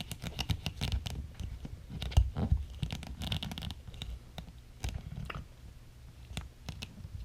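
Irregular scratching, rubbing and clicking of hard plastic being handled: an Arlo security camera being tugged and wiggled on its magnetic wall mount.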